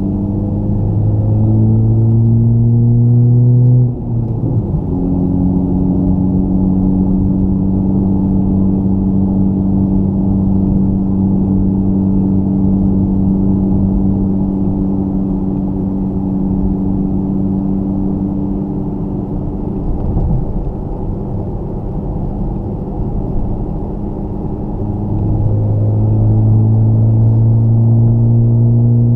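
Honda Civic Type R FK8's turbocharged 2.0-litre four-cylinder running through a Tomei titanium muffler at cruising speed, heard as a loud, deep exhaust drone. The drone climbs slowly, breaks off at a gear change about four seconds in, gives way to a steadier, higher hum, and comes back deep near the end.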